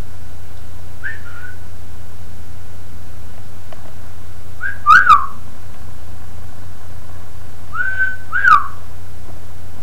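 A person whistling short notes three times. The middle set is marked by two sharp kiss smacks, and all of it sits over a steady low hum.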